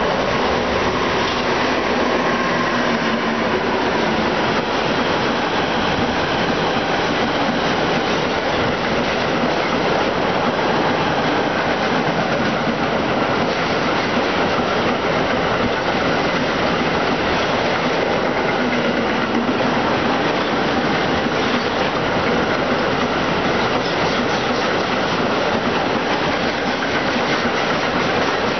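Garden-scale model trains running on an outdoor layout, a steady rolling sound of wheels on track.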